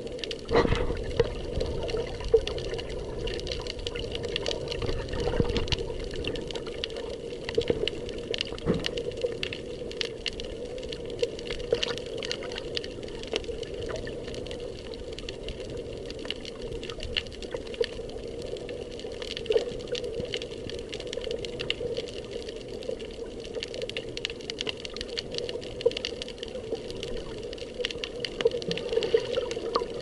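Underwater sound picked up by a submerged camera: a steady muffled wash of water, dotted all through with small clicks and crackles. There is a low rumble during the first few seconds.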